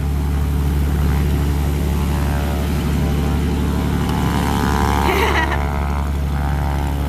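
Propeller airplane engine running on the ground just after start-up, a steady drone that grows a little louder in the first second.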